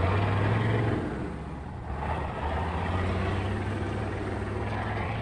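Heavy-machinery diesel engine running steadily with a low hum, easing off briefly about a second and a half in before picking up again.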